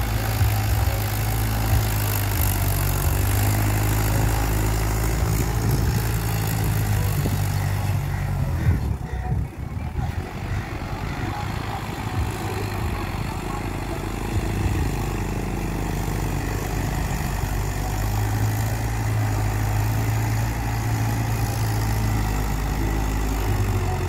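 Engine idling steadily, its level dropping briefly about nine seconds in.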